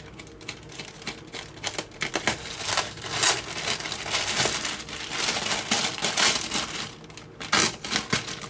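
Crinkling and rustling of a soft parcel's wrapping being pulled open by hand, in irregular handfuls, louder in patches.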